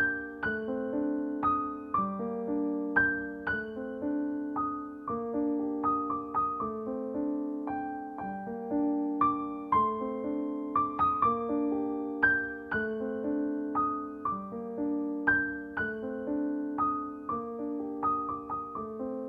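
Instrumental music: a keyboard playing a slow melody of struck notes that fade, over lower chords, as the introduction before the singing of a Bengali film song.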